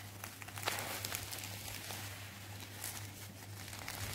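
Bubble wrap crinkling and crackling as hands handle and unfold it from around a boxed album, over a steady low hum.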